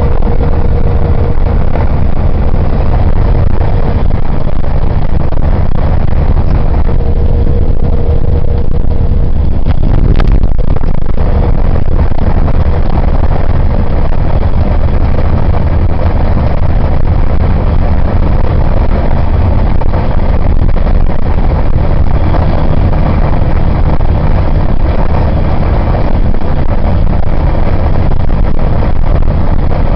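A vehicle driving at speed, heard from inside: a loud, steady low rumble of engine and road noise. A thin steady whine runs through the first nine seconds or so, and there is a single click about ten seconds in.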